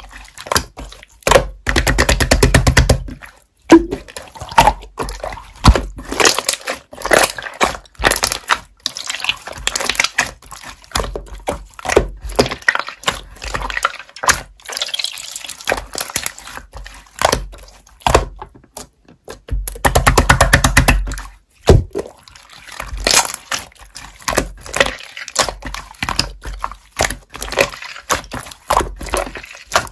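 Slime being squished and pressed by hand: a continual run of short clicks and pops, with two louder stretches of dense, rapid popping about two seconds in and about twenty seconds in.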